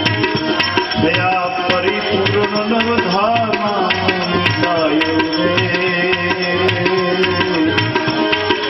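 Instrumental interlude of a Gujarati bhajan: tabla keeping a steady rhythm under a melody line that glides in pitch.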